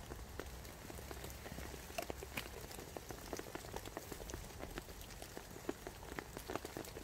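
Heavy rain falling: a dense, irregular ticking of drops over a steady hiss.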